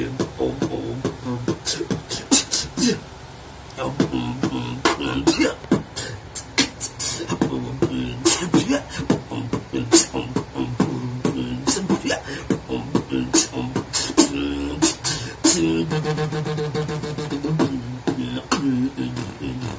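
A man beatboxing: a fast run of sharp clicks and snare-like hits over a hummed bass line, with a short quieter stretch about three seconds in and a steady held hum near the end.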